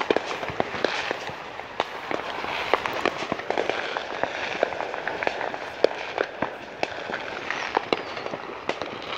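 Many fireworks and firecrackers going off together: a dense, irregular stream of pops and crackles, with a few louder bangs standing out.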